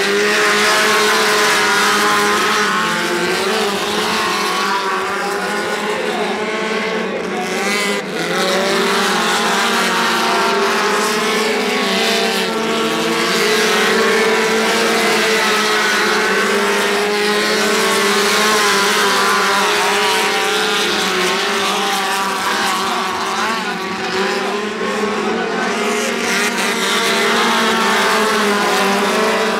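Several small speedway race cars racing in a pack, their engines running hard together. Their pitches rise and fall as the drivers accelerate and lift through the turns.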